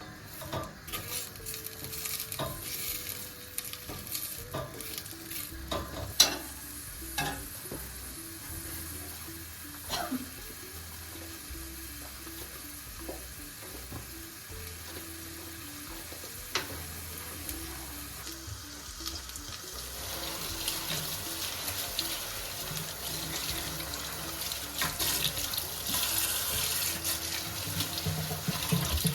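Household kitchen work: scattered knocks and clinks in the first half, then, from about twenty seconds in, a steady hiss that grows louder. Soft background music plays underneath.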